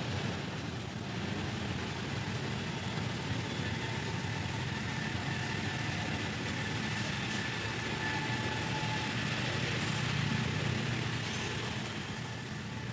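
Steady outdoor background noise: an even low hum with a constant hiss over it, the kind of sound an engine running at a distance makes.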